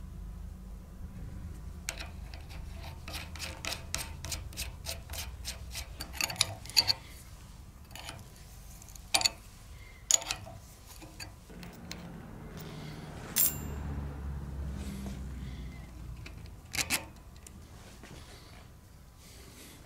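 Small metal clicks and clinks as a steel nut is run down a threaded rod clamped in a vise and a wrench is handled: a quick run of light clicks, several louder sharp clicks, and one brief ringing clink about two-thirds of the way through.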